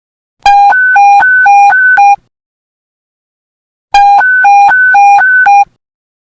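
Police panic button alert tone: an electronic hi-lo beep switching rapidly back and forth between a lower and a higher pitch, about four changes a second. It sounds in two loud bursts of just under two seconds each, about a second and a half apart.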